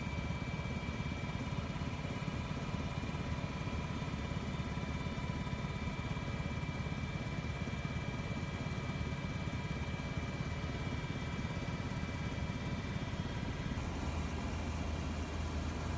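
Steady aircraft engine drone heard from inside the cabin: a low hum with a constant high whine over it. Near the end the low hum gets stronger.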